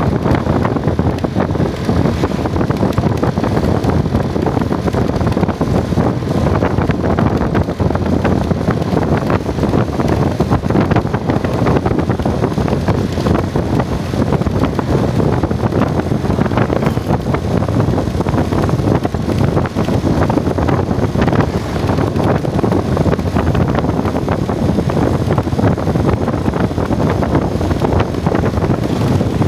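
Steady, loud wind buffeting the microphone while travelling, with the rumble of the moving vehicle underneath.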